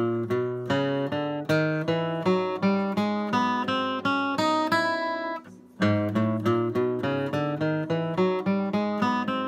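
Steel-string acoustic guitar with a capo, flatpicked: a lick of single notes and chords in an even rhythm, about two or three notes a second. It stops briefly about five seconds in and starts again.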